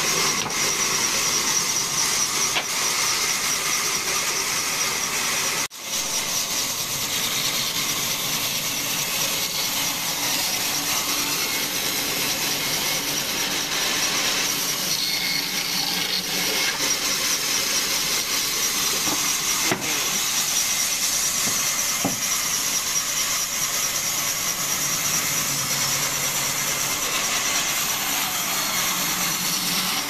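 Band saw running and cutting fresh, green log wood: a steady, high-pitched hiss of the blade in the timber over the machine's hum. The sound breaks off sharply for a moment about six seconds in.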